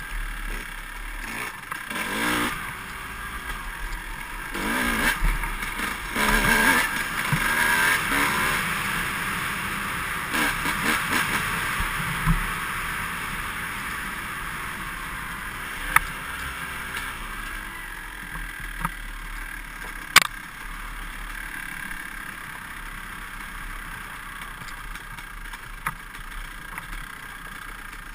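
Dirt bike engine running and revving on a forest trail, heard from the rider's own bike, loudest between about five and eight seconds in and then settling. A couple of sharp knocks come later, typical of the bike hitting bumps or rocks.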